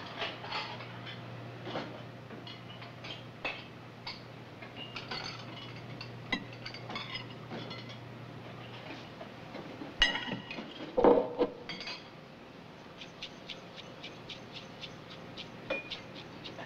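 Fork, plate and glass clinking at a diner counter as someone eats, with a louder clatter of dishes about ten seconds in. A low steady hum runs under it and stops at about the same point.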